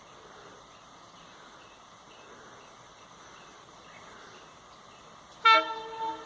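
A quiet outdoor background, then about five seconds in a WDM3D diesel locomotive's horn sounds one short, loud, multi-tone blast, peaking twice within under a second.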